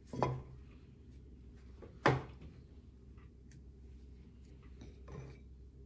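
Light handling sounds and knocks of hands pressing a soft food mixture onto a plate on a wooden table: one sharp knock about two seconds in, smaller ones near the start and about five seconds in.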